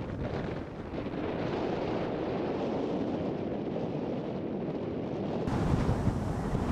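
Wind buffeting the microphone: a steady rushing, blustery noise, which gets louder and hissier about five and a half seconds in.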